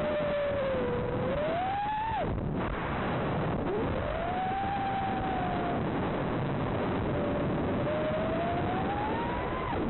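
FPV quadcopter's motors and propellers whining in flight, the pitch rising and falling with the throttle. The whine drops away about two seconds in as the throttle is cut, climbs back about a second and a half later, and drops again at the very end, over a steady hiss.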